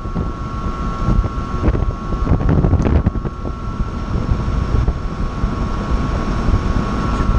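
Belt-driven rooftop exhaust fan running steadily on its newly fitted 2 hp three-phase motor: a low rumble with a steady high whine, and wind buffeting the microphone. A few light clicks about two to three seconds in.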